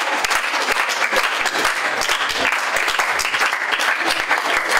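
A small audience applauding steadily: a dense, even patter of many hands clapping.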